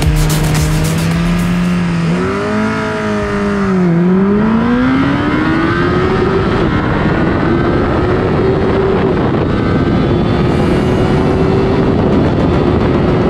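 2002 Yamaha YZF-R1's inline-four with an aftermarket BOS exhaust, held at steady revs, then dipping and climbing sharply in pitch as the bike launches and accelerates down the drag strip, with a brief dip near seven seconds at a gear change. Heavy wind rush on the onboard microphone at speed.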